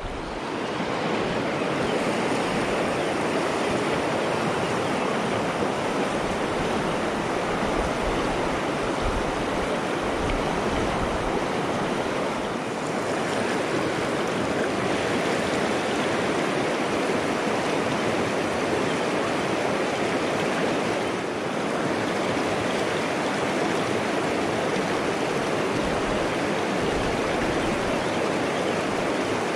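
Steady rush of river current pouring over a shallow rocky riffle with whitewater. The river is running high with its first spring rise of the year.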